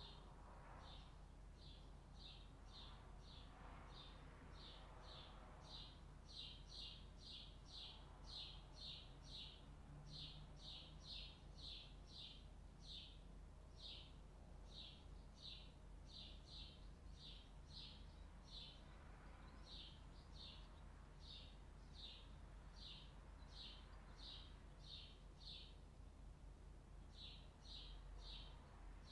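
A small bird chirping over and over, faint: short high chirps about two or three a second, with a brief pause near the end, over a faint low steady hum.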